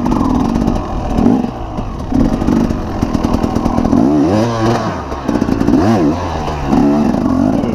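Dirt bike engine revving up and down repeatedly, its pitch rising and falling in short surges as the bike works over rough, rocky ground.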